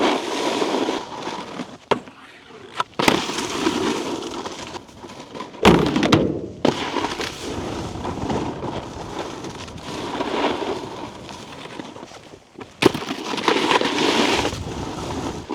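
Snowboard edges scraping over icy, hard-packed snow, swelling with each turn about every two seconds, broken by several sharp knocks of the board. The loudest knocks come around six seconds in.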